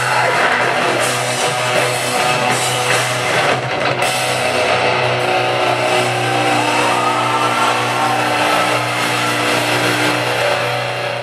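Live metalcore band playing loud through a PA, heard from the crowd: distorted electric guitars, bass and drums, with chords held and ringing in the second half.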